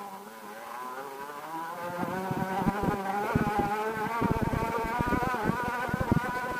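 A small engine revs up, its buzzing pitch rising over the first few seconds, then runs steadily with a slight waver. Wind buffets the microphone as the vehicle gathers speed.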